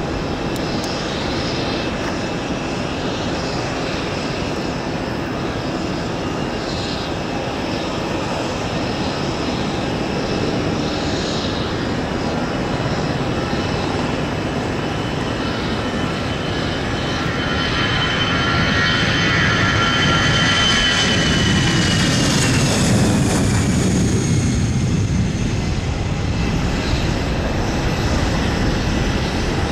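Airbus A319-111's CFM56 jet engines at takeoff thrust during the takeoff roll, getting louder as the aircraft approaches. A high whine falls in pitch as it passes close by, about three quarters of the way through, followed by a deep rumble as it climbs away.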